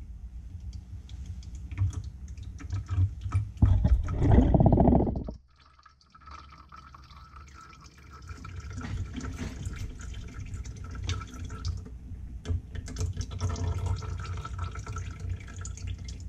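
Old vacuum pump oil draining out of a Hilmor HVAC vacuum pump into a container, gurgling and dripping. A heavier pour around four to five seconds in stops abruptly, and an uneven trickle resumes a couple of seconds later.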